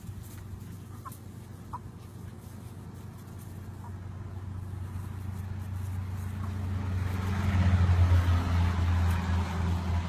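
A couple of short hen clucks in the first two seconds, over a steady low droning hum that swells over several seconds and is loudest near the end.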